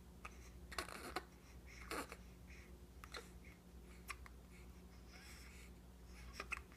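Two babies hiccuping: faint, short hiccups about once a second, then two more close together near the end.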